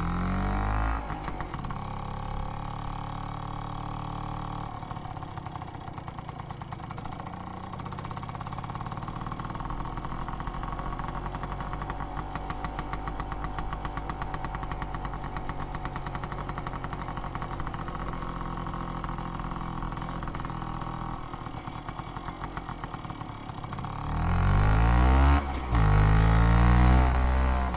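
Vespa PX 200 scooter's single-cylinder two-stroke engine, through its old exhaust, settling from a rev into a steady idle, then revved hard twice in quick succession near the end, the loudest part.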